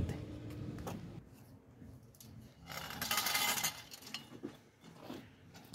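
Metal wire rack being picked up: about a second of metal rattling and scraping near the middle, then a few light clicks.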